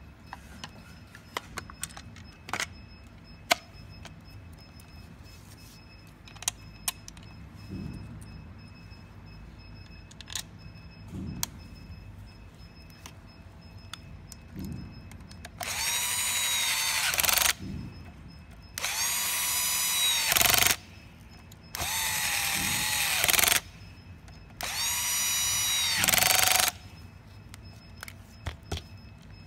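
Small electric screwdriver driving screws, running in four bursts of about two seconds each, its whine rising as it spins up and dropping as it stops. Before that, scattered light clicks and knocks of plastic parts being handled.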